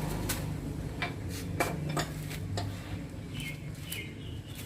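Metal clinks and taps of a wheel spanner working a car's wheel nuts: about half a dozen sharp clicks in the first three seconds, over a low steady hum.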